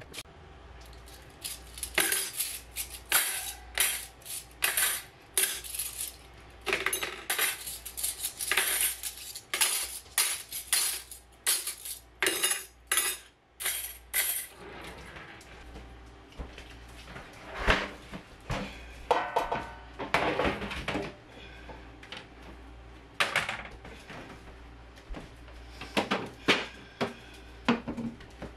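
Dishes and stainless steel cutlery clinking and clattering as they are handled and put away, with rapid clinks through the first half and scattered knocks later.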